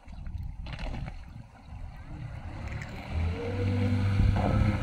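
Small boat's electric outboard motor running under way, a low hum with water wash from the hull. Wind on the microphone grows louder about three seconds in.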